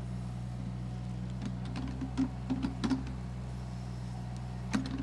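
Excavator engine running steadily with a low, even hum, with a few short clicks and clanks in the middle and again near the end.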